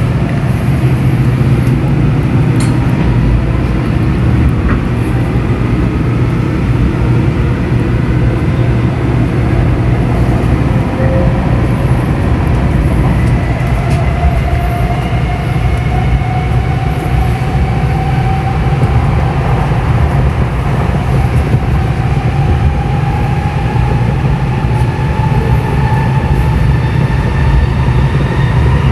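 N700S Shinkansen train running, heard from inside the car: a steady low rumble with the traction motors' whine slowly rising in pitch as the train gathers speed.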